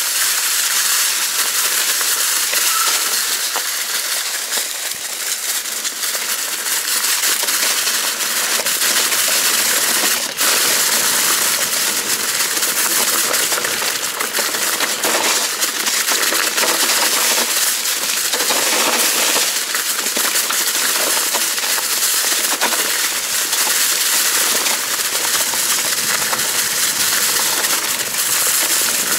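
Mountain bike tyres rolling fast through a deep layer of dry fallen leaves: a steady crunching and crackling with many sharp clicks.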